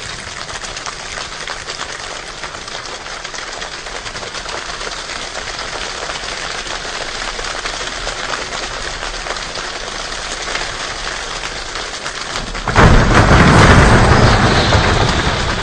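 Steady rain pattering, a dense hiss of fine drop strikes. About three-quarters of the way through, a sudden loud clap of thunder breaks in and rumbles, fading over a few seconds.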